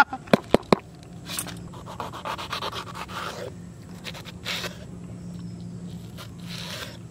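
Small knife cutting a green bell pepper on a wooden board: several sharp clicks in the first second, then irregular slicing strokes through the pepper.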